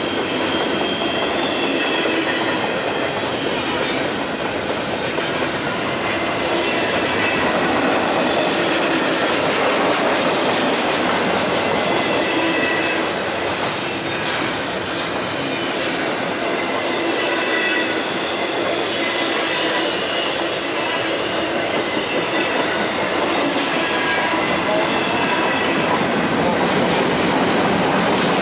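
Double-stack intermodal well cars of a freight train rolling past, a steady noise of steel wheels on rail with thin high wheel squeals coming and going.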